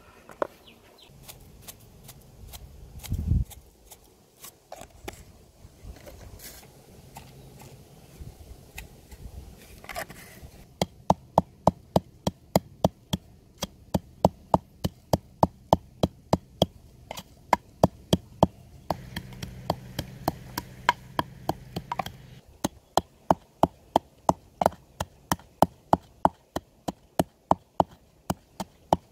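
Wooden pestle pounding black peppercorns in a wooden mortar: sharp, even strikes about two to three a second, beginning about a third of the way in after a few scattered knocks.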